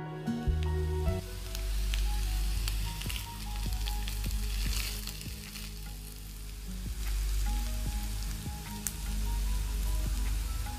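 Shredded potatoes sizzling as they fry in oil in a nonstick pan, stirred with a silicone spatula, with scattered light scrapes and taps. Soft background music plays underneath.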